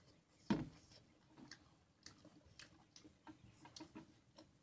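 Close-up eating sounds of people chewing rice and pork by hand: a scatter of small lip smacks and mouth clicks, with one louder thump about half a second in.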